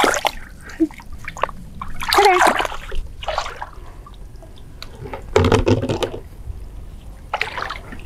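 Shallow pond water splashing and sloshing as a person wades through it, in irregular bursts, the loudest a little past halfway.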